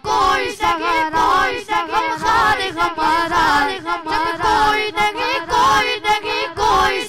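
Urdu devotional naat sung by several voices together with no instruments: a higher melodic line moves over a lower held layer of voices.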